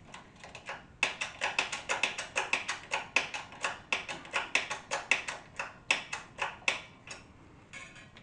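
A quick run of sharp metallic clicks, about four a second, from tool work on a motorcycle front fork during a fork seal job. The clicks start about a second in and thin out to a few scattered ones near the end.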